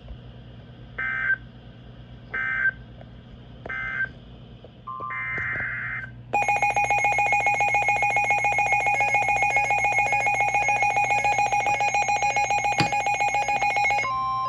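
Emergency Alert System (SAME) digital data bursts: three short buzzy chirps about a second and a half apart, then a longer one. About six seconds in, a loud, rapidly pulsing electronic attention tone begins and holds for about eight seconds.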